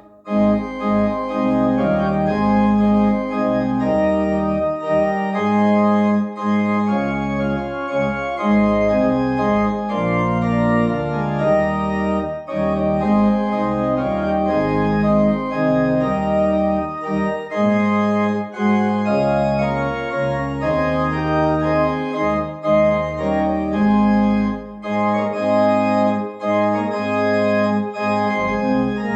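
Organ postlude played after the dismissal: full sustained chords over a bass line that steps from note to note, with a brief break right at the start.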